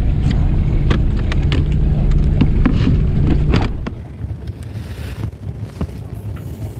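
A boat's engine hums steadily under scattered clicks and knocks of gear on the deck. After about four seconds this gives way to a quieter rush of wind on the microphone and sea, with a few light clicks.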